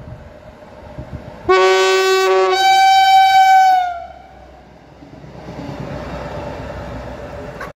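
Passenger train sounding its horn twice as it comes up to and passes beneath the bridge: a shorter blast, then a longer one that drops in pitch at its end as the train goes under. The rushing, rolling noise of the train going by follows.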